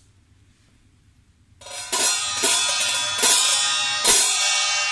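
MaxBeat hi-hat cymbal struck four times, starting a little over a second and a half in, each hit left to ring on with a bright metallic shimmer that slowly fades.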